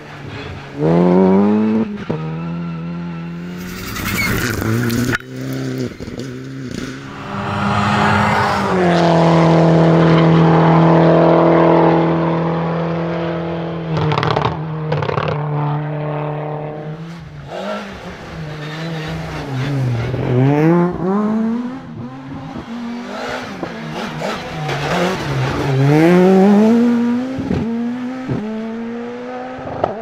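Rally car engines at full throttle, one car after another, the first an Opel Adam rally car. The engine note climbs and drops with each gearchange, holds one long high-revving note, and a few sharp cracks come in between.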